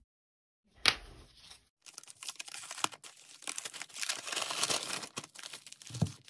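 A paper mailer envelope being torn open and crinkled by hand: a sharp click about a second in, then a dense run of tearing and rustling paper, ending in a soft thump.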